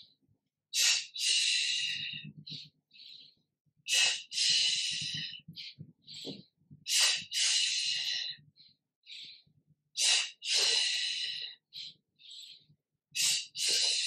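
A woman's audible yoga kriya breathing: a short sharp breath followed at once by a longer one, the pair repeating about every three seconds, with softer little puffs in between.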